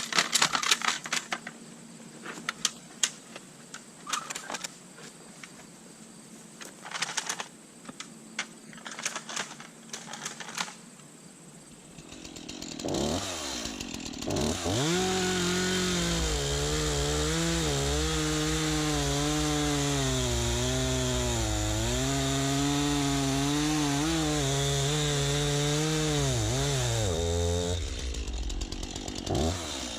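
Scattered sharp knocks and clatter for the first dozen seconds. Then a two-stroke STIHL MS 251 C chainsaw revs up and runs hard, its pitch sagging and recovering as it cuts. It drops off briefly near the end before revving up again.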